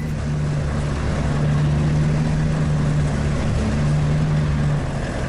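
Sherp all-terrain vehicle's engine running steadily as it drives, heard from inside the cab: a low, even drone.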